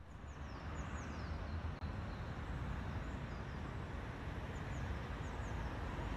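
Outdoor park ambience: a steady low rumble and hiss, with small birds giving short, high, falling chirps again and again.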